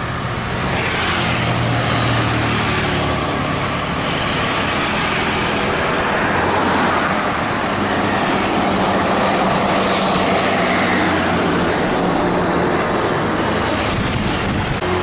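Large buses' diesel engines running as they pull away along the road, with motorcycles passing and a steady traffic drone.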